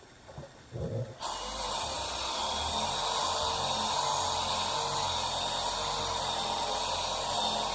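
Workpro 12-volt cordless polisher fitted with a buffing pad, switched on about a second in and then running steadily. A few light handling knocks come just before it starts.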